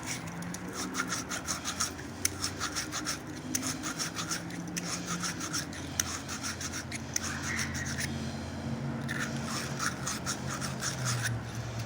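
Emery cloth scrubbing the inside of a copper plumbing fitting in quick back-and-forth strokes, polishing the metal bright before it is fluxed and soldered. The strokes come in runs with short pauses, one about eight seconds in and another near the end.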